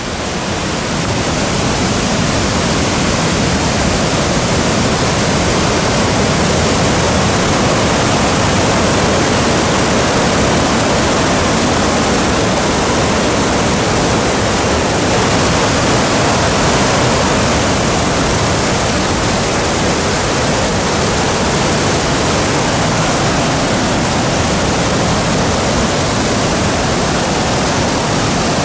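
Whitewater rapids of a mountain creek rushing over rocks through a narrow canyon just above a waterfall: a loud, steady whoosh of water.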